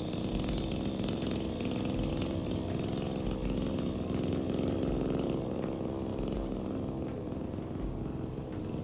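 Lawn mower running off to one side, a steady motor sound that grows louder in the middle and fades somewhat near the end as the mower moves past.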